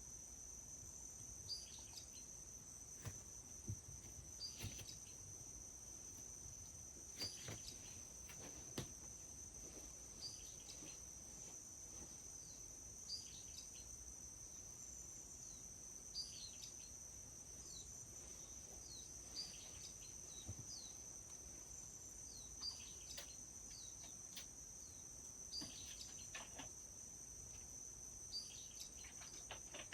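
Faint forest ambience: a steady high-pitched insect chorus, with short downward-sliding bird chirps every second or few and a few light clicks.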